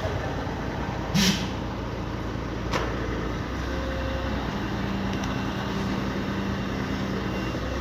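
Crane truck's engine running steadily while it lifts a heavy machine, with a short hiss of air about a second in and a sharp click a little later.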